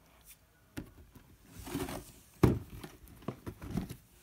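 Handling noises: a scattering of light knocks and short rustles, with one sharp knock about two and a half seconds in.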